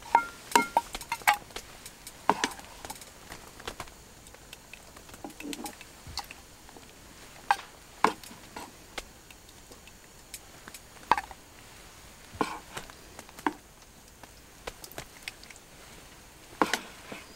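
Metal spoon scraping and clinking inside a small metal camping pot, in irregular strokes with pauses between them; the first few clinks ring briefly.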